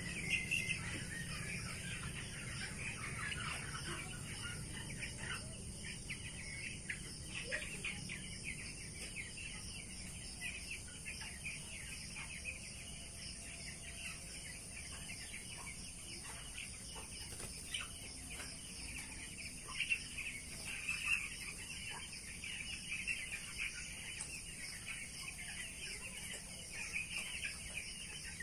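A flock of young broiler chickens peeping and chirping, with many short high calls overlapping continuously and a few louder calls now and then.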